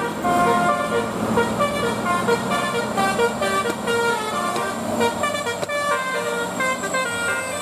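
Telolet bus horn, a multi-trumpet air horn, playing a quick melody of short notes that step up and down in pitch.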